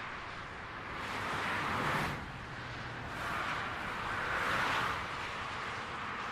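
Highway traffic: vehicles passing with a steady rush of tyre and engine noise, swelling to a peak about two seconds in, which ends abruptly, and again around four and a half seconds in.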